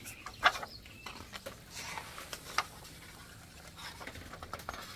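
Pages of a large paper photo album being handled and turned: paper rustling with a few sharp taps, the loudest about half a second in.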